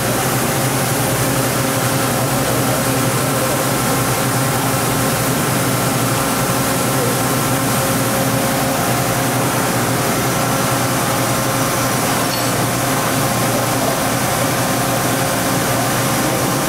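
Steady machine hum with several constant tones over an even whir, from the powered-up OKK VP600 5-axis vertical machining center running.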